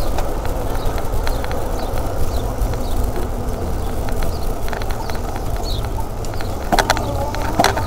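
Wind and road rumble on a bicycle-mounted camera while riding, with scattered rattling clicks and a few sharper knocks near the end. Faint high chirps come and go over the top.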